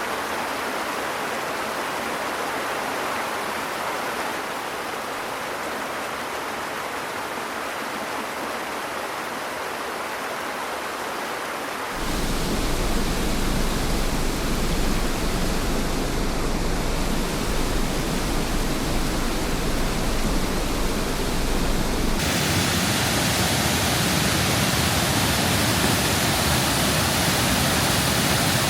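Waterfalls rushing: a steady wash of falling water that changes abruptly about twelve seconds in to a louder, deeper rush, and again about ten seconds later to a brighter, hissier one, as one fall follows another.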